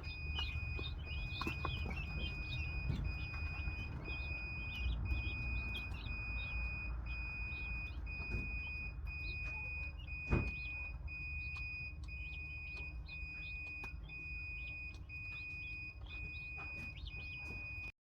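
Guinea fowl chirping in short, irregular high calls, over a steady high tone that beeps in even pulses about once a second and a low rumble; one sharp knock about ten seconds in.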